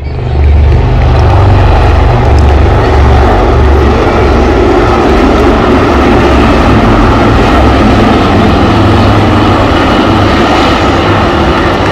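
HAL Dhruv helicopters flying overhead: loud, steady rotor and engine noise with a heavy low pulsing.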